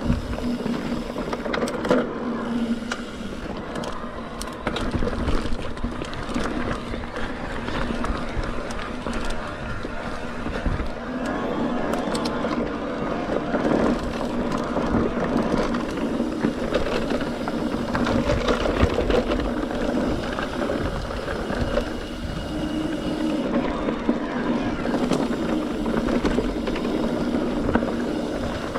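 Mountain bike rolling along dirt singletrack: tyres on the trail, the bike rattling and clicking over bumps, and wind on the microphone, under a steady low hum.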